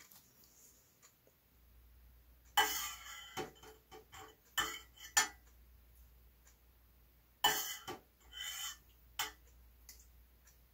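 Wooden mixing stick scraping and tapping in a small plastic cup of epoxy sealer being thinned with denatured alcohol, in two clusters of short sounds.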